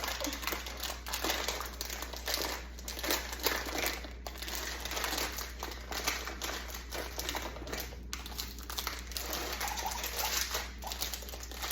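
A plastic bag crinkling and rustling in the hands, with a stream of small irregular clicks and rattles, as from dried beans shifting inside the bag.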